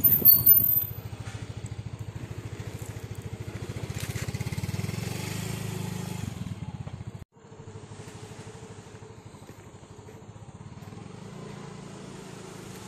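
A small engine running steadily with a rapid, even pulse. Its level drops sharply about seven seconds in and it carries on quieter, with a few louder knocks in the first second.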